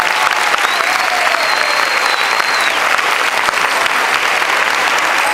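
Audience applauding: many hands clapping steadily, with a thin high tone held for about two seconds near the start.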